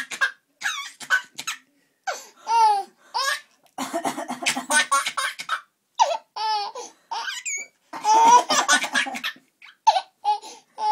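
A baby laughing in short, high-pitched squealing bursts, alternating with a woman's rough bouts of coughing.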